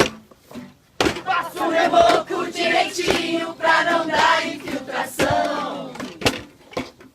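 A group of voices shouting together in a long, drawn-out shout that falls in pitch near the end, with a few sharp knocks before and after it.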